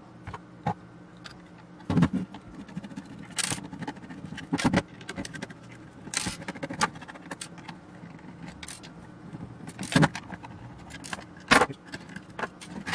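Scattered small metallic clicks, clinks and knocks, irregularly spaced, from the parts and tools of an avionics control box being handled as it is taken apart.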